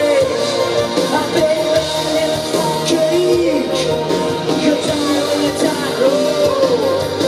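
Live rock band playing, with electric guitar and a man singing into the microphone.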